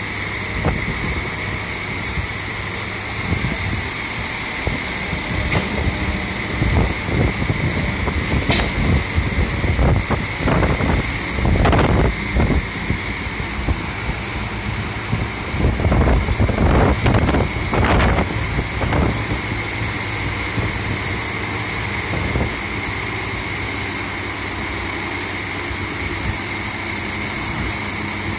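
Flatbed tow truck's engine running to drive its hydraulic tilt-and-slide bed, a steady hum with a constant high whine. It grows louder and rougher for a few seconds around ten and again around sixteen seconds in.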